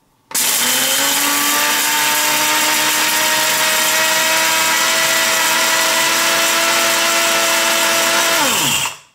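Mr. Coffee multi-grind blade grinder's motor starting at the push of its button and running steadily, its blades chopping whole coffee beans on the coarsest setting. Near the end it shuts off by itself and winds down, the pitch falling.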